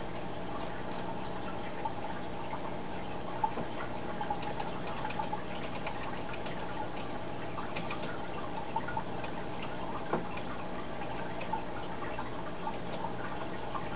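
Fish tank equipment running with a steady electrical hum and water trickling, with scattered faint ticks and clicks throughout and a thin, steady high whine.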